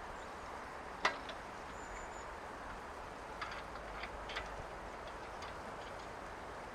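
Steady rush of running water, with one sharp click about a second in and three fainter clicks a little past the middle.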